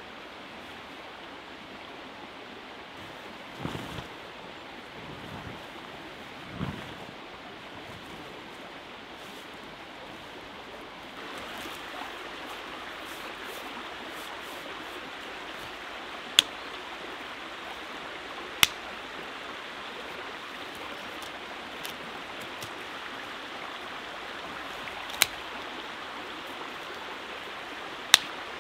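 Small forest river flowing steadily, a little louder from about a third of the way in. Two soft handling thumps come early, and four sharp cracks come later as sticks are worked on mossy ground.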